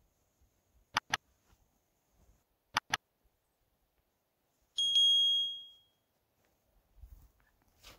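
Mouse-click sound effects: two quick double clicks, then a bright bell-like notification ding that rings out and fades over about a second.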